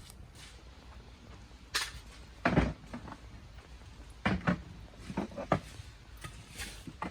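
Campfire burning: firewood popping and crackling in irregular sharp cracks and knocks, the loudest a heavier knock about two and a half seconds in.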